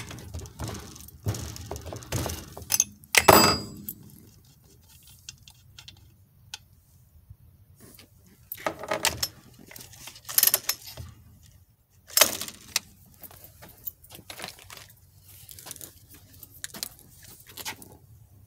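Metal hand tools clinking and knocking as they are handled and set down on a workbench: a string of separate knocks and rattles with quiet gaps between them, the loudest a few seconds in.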